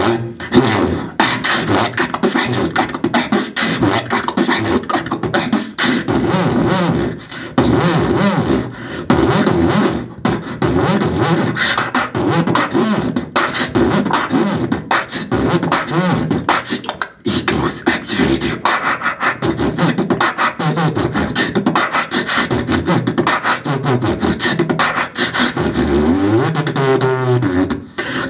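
A young man beatboxing into a corded handheld microphone: rapid, rhythmic mouth percussion of clicks and beats woven with hummed pitched tones. Near the end a hummed note slides up and down.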